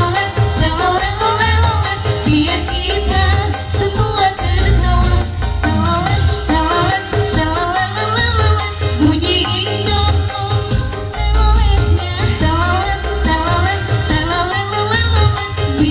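Upbeat song music with a steady beat, a shifting bass line and a wavering melody line over it.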